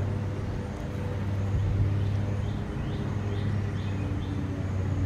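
Steady low motor hum with a small bird giving five short chirps, about two a second, starting a little before halfway.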